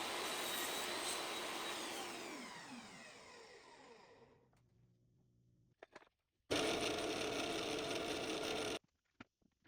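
Electric power tool running, then switched off and winding down with falling pitch over a couple of seconds. After a few clicks, a second burst of the same kind of machine noise starts and stops abruptly, then a few light ticks.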